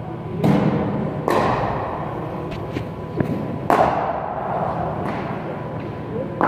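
A handful of sharp thuds of cricket balls striking bats, the pitch mat and netting in a large indoor net hall, spaced a second or two apart; the loudest come about half a second in and just before four seconds.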